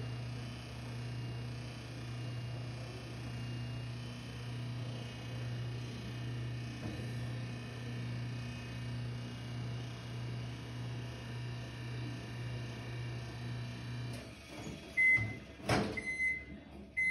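Microwave oven running with a steady low hum that wavers in a slow, regular rhythm, an odd noise that the owner puts down to the turntable dish being off its place. Near the end the hum stops, the microwave beeps, and there is a sharp clunk as the door is opened.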